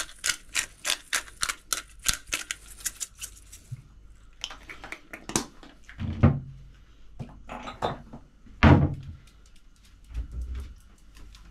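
A hand-held spice grinder being twisted over a cooking pot, giving a steady ratcheting clicking of about three to four clicks a second that stops after about three and a half seconds. A few kitchen knocks and thumps follow, the loudest near nine seconds in.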